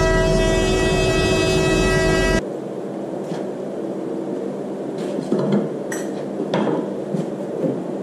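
LH15A induction heater running with a steady hum and whine made of many tones, cutting off suddenly about two and a half seconds in. After that, a few light knocks and rattles as charcoal lumps are handled on top of the mould.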